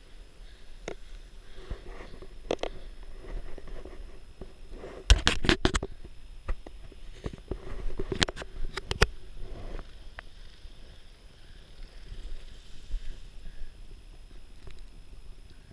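Handling noise close to a head-mounted camera: soft rustling broken by clusters of sharp clicks, about five and eight seconds in.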